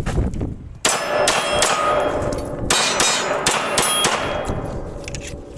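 A quick string of about seven gunshots, each striking a steel target that rings with a sustained metallic tone; the ringing fades away near the end.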